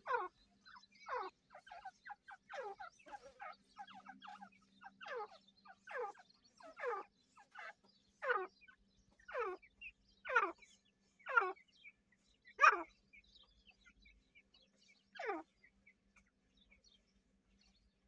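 Grey francolins calling: a string of short, sharply falling notes, roughly one a second, after a few seconds of fainter broken chirps. The loudest note comes about two thirds of the way through, and the calls stop a few seconds before the end.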